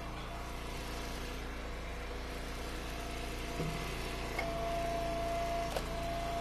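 Gas engine of an Eastonmade Ultra hydraulic log splitter running steadily. A steady whine grows louder about four and a half seconds in, and a few short knocks come as hickory pieces are handled on the splitter.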